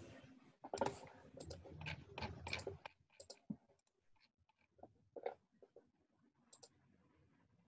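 Faint scattered clicks and rustling, dense in the first three seconds, then sparse single clicks over a quiet room hush.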